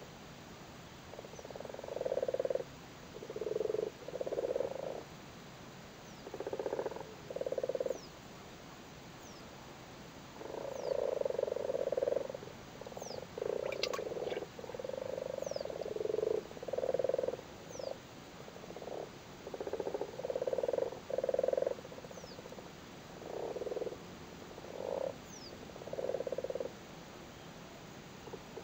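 Common frogs calling in a chorus during spawning, the calls of males on the breeding water. Low croaking calls come in irregular runs, some short and some over a second long, often overlapping one another.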